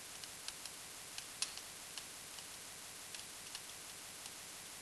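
Faint, irregular ticks and taps of a stylus on a writing surface as a line of handwriting is written, over a steady low hiss. The sharpest tick comes about a second and a half in.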